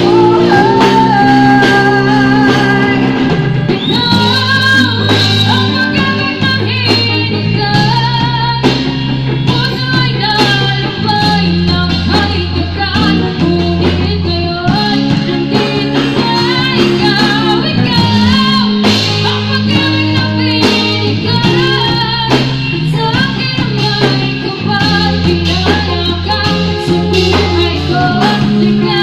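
Live band playing a song with a woman singing lead into a microphone, backed by electric bass, electric guitar and a drum kit, all amplified.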